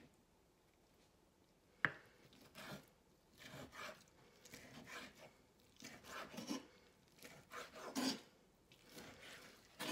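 Kitchen knife chopping semi-fried bacon on a wooden cutting board: a dozen or so uneven knocks and scrapes of the blade against the board. They start with a sharp knock about two seconds in, and the loudest comes near the end.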